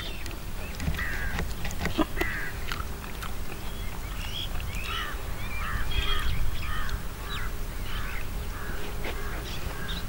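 Birds calling, a series of short repeated calls about two a second, over a steady low background rumble.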